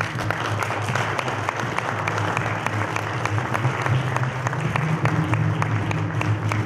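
Audience applauding, dense clapping over steady background music.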